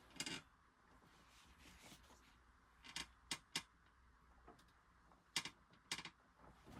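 A few faint, sharp clicks and taps of small metal tools and parts being handled on a sewing machine, scattered through near silence.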